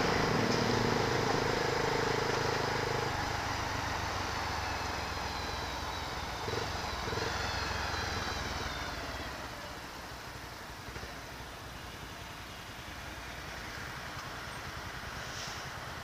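Motorcycle engine and wind noise while riding in city traffic, growing quieter as the bike eases off and slows, then a lower idle among surrounding traffic in the second half.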